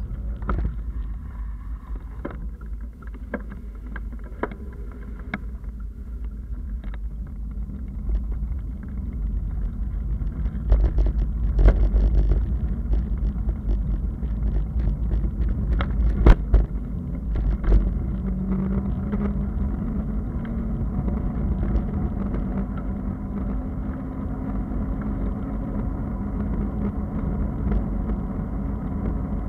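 Bicycle riding on wet asphalt: wind rumbling on the microphone and tyre noise, with scattered knocks and rattles from bumps in the surface. The rumble grows louder past the middle, and a low steady hum sets in after that.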